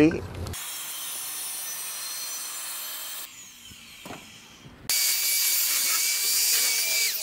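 Handheld electric sander running on an OSB sheet, a steady whine over grinding noise that drops in pitch as it winds down near the end. Before it, a quieter stretch of power-tool noise, then a short lull with a single knock.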